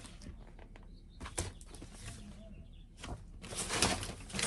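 Rustling and handling of a bag and the school supplies inside it, with a couple of light knocks. The rustling grows louder about three and a half seconds in.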